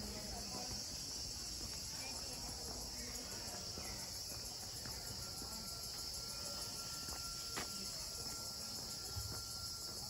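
Steady high-pitched chorus of insects. A faint thin steady whistle comes in about halfway through, and there is a single click near the end.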